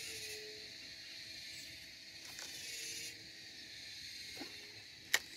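Insects chirring in a steady high-pitched chorus that thins out about three seconds in, with one sharp click near the end.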